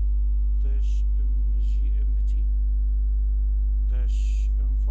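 Steady electrical mains hum with a buzzing row of overtones, the loudest thing throughout. Faint, indistinct speech comes through twice, about a second in and near the end.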